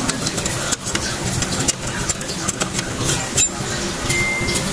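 A steady low hum of a running engine, with a few light metal clicks from hands working the brake line fitting at the drum-brake backing plate. A short high beep comes near the end.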